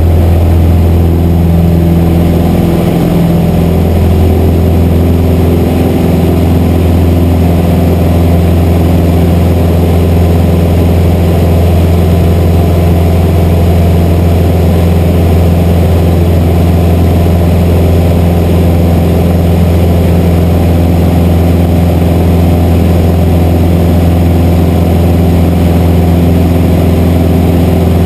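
Piston engine and propeller of a small single-engine high-wing airplane at full takeoff power, heard inside the cabin as a loud, steady drone through lift-off and the climb.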